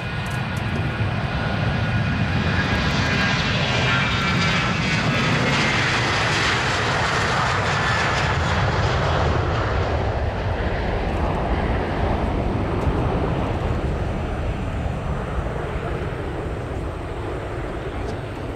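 Boeing 737-800's CFM56-7B turbofan engines at takeoff thrust as the jet rolls, lifts off and climbs away. A loud roar with whining tones that fall in pitch as it passes, fading over the last several seconds.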